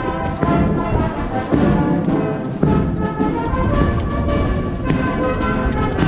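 Brass band playing a processional tune, with sustained brass chords and regular drum beats.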